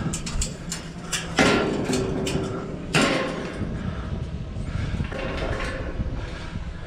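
Steel hog-pen panels and a stock trailer's metal gate rattling and clanking. Two loud clangs, about a second and a half apart, each ring briefly.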